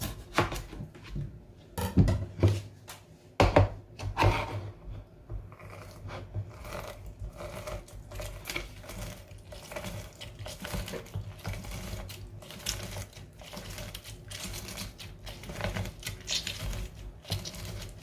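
Kitchen utensils knocking and clicking against a bowl as a lime is juiced by hand: a few loud knocks in the first few seconds, then a long run of quick, irregular clicking and scraping.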